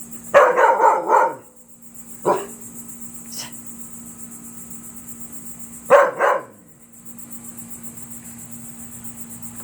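Dog barking at a vacuum cleaner: a quick run of about four barks, a single bark a second later, and a double bark about six seconds in, over a steady low hum.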